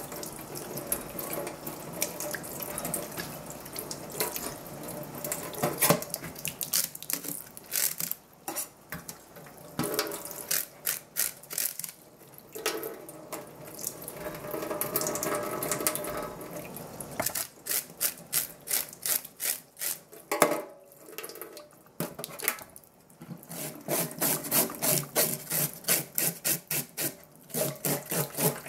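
Tap water running into a stainless steel sink while a large flatfish is rinsed. Later comes a run of quick rubbing strokes, about three a second, as the fish is scrubbed clean in the sink.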